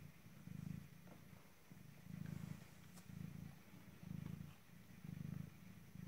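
Mother cat purring softly while nursing her week-old kittens, a low rumble that swells and fades about once a second with her breathing.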